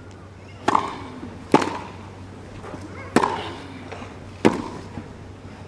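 Tennis rackets striking the ball in a rally: four sharp hits, roughly one to one and a half seconds apart, then a fainter knock near the end, over a steady low hum.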